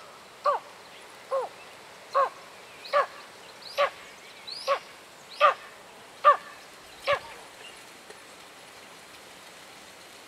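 Tawny eagle calling: a run of about ten short calls, each dropping in pitch, spaced a little under a second apart, that stops about seven seconds in.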